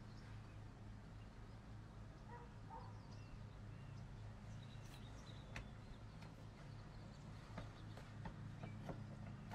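Near-quiet background: a faint steady low hum, with scattered small clicks and a few faint short chirps.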